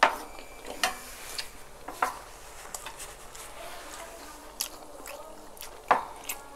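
Metal spoons and forks clinking and scraping against dishes of food, a scattered run of sharp clinks, loudest at the start and about six seconds in, with soft eating sounds between.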